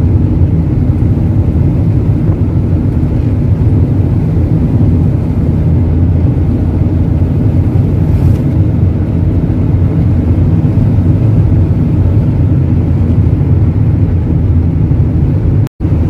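Fiat car driving along a road, heard from inside the cabin: a steady low rumble of engine and tyres. It breaks off for a split second near the end.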